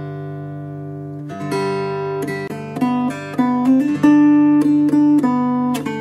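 Background music: an acoustic guitar, a chord ringing out and then a slow melody picked note by note over a held bass note from about a second in.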